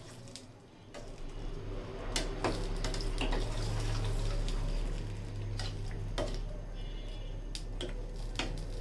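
Hot water being poured into a pot of chicken curry, with a steady rushing and a few sharp metal clinks of utensils against the pot.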